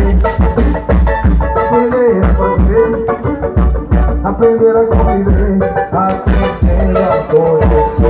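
Bumba-meu-boi toada playing loudly: a lead voice sings a melody over a steady, driving percussion beat.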